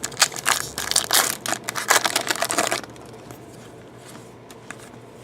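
Plastic trading-card pack wrapper crinkling and crackling as it is handled and crumpled, for about three seconds. After that come only a few faint handling ticks.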